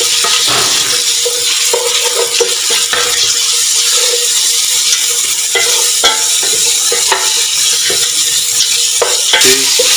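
Sliced onions and whole spices frying in oil in a large stainless-steel pot: a steady sizzle, with a wooden spoon stirring and scraping against the pot and knocking on it now and then.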